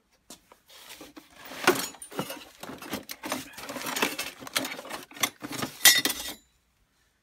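Steel offcuts, bars and angle pieces clattering and clinking against each other as they are rummaged through by hand in a scrap bin, a string of irregular knocks and scrapes that stops about six seconds in.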